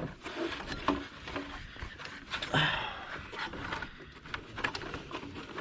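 Light rubbing, scraping and small knocks of a cracked, broken drive belt being pulled out from around the engine pulleys, with a short scraping rush about halfway.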